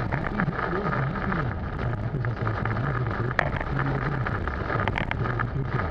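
Heavy rain pelting a moving car's windshield and roof, a steady wash of noise under a dense crackle of drops, with one sharper crack about three and a half seconds in.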